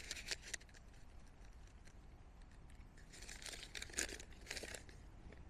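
Faint handling noise: a few small clicks at the start, then two short spells of rustling a little after three and four seconds in.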